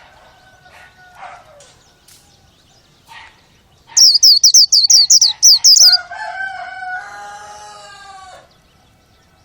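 Bird calls: faint calls at first, then about four seconds in a burst of about ten fast, loud, high chirps, followed by a drawn-out crowing call lasting about two and a half seconds.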